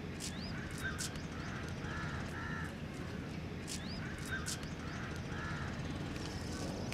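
Birds calling: short calls, some coming in pairs, recurring every second or two, with a few high thin chirps, over steady low background noise.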